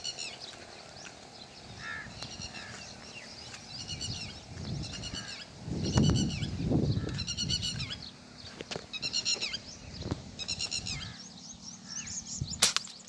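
An animal calling over and over, short high-pitched calls roughly once a second, with a sharp crack near the end.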